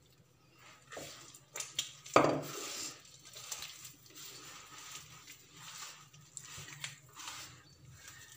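A single hard clunk about two seconds in, after a few lighter clicks, as a glass bottle and plastic cup are set down. Then hands mix and press wet flour dough in a terracotta dish, with soft irregular scraping and squishing.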